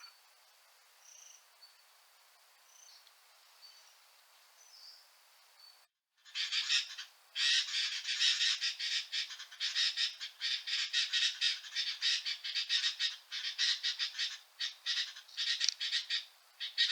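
Faint scattered bird chirps over a thin, steady, high insect tone. Then, after a short break about six seconds in, loud, harsh, rapid chattering calls of sooty-headed bulbuls pour out almost without pause.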